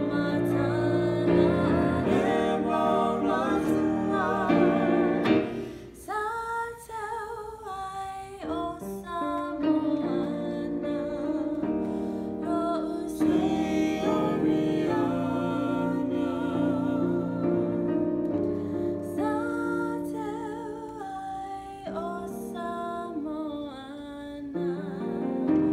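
Singing with vibrato on long held notes, accompanied by chords on a portable electronic keyboard. About six seconds in the accompaniment drops back briefly, leaving mostly the voice, before the keyboard fills in again.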